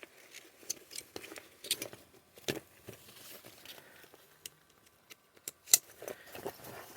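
Nylon skate backpack being handled: light fabric rustling and scattered small clicks of its plastic accessory clips, with the sharpest click near the end.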